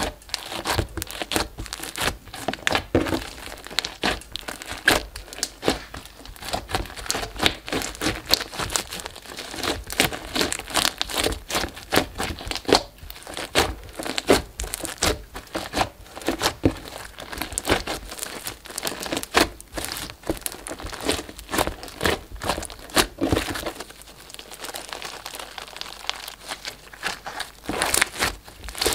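Glossy slime loaded with foam beads and fruit-slice charms being pressed, poked and kneaded by hand: a dense run of small sticky pops, clicks and crackles. It grows quieter and thinner for a few seconds near the end, then picks up again.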